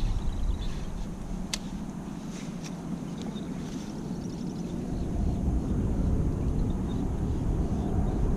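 Steady low rumble of wind and water noise around a fishing kayak on the water, growing louder in the second half, with a couple of faint clicks in the first few seconds.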